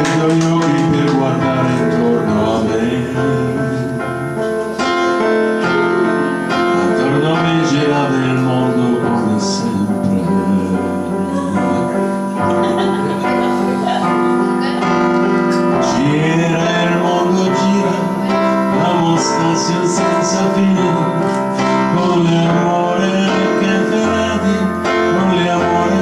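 Live music: a Yamaha electronic keyboard playing held chords and a bass line, with a man singing over it.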